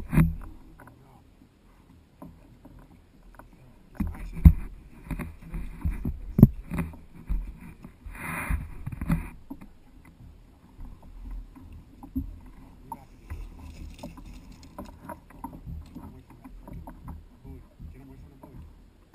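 Handling noise in an inflatable kayak while a fish is reeled in on a baitcasting rod: irregular knocks and bumps against the boat, with a brief rushing noise about eight seconds in.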